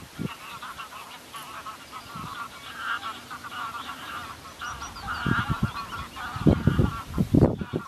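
A flock of geese honking, many overlapping calls in a continuous chatter. Wind buffets the microphone in low rumbles from about five seconds in.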